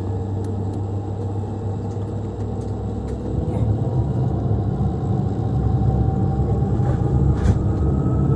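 Rolls-Royce Dart turboprop engine of a Hawker Siddeley HS 748 spooling up during start: a steady low rumble that grows louder about three seconds in, with a thin whine slowly rising in pitch.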